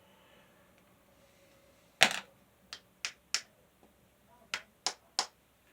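Sharp knocks and clicks, one loud knock about two seconds in and then two quick runs of three, as new feet are pushed and snapped onto a box fan's housing.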